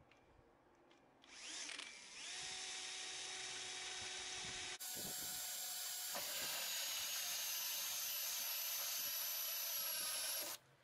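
Cordless drill driving a hole saw through a sheet of acrylic plastic. It spins up with a rising whine about a second in, then runs steadily as the saw cuts, and stops just before the end.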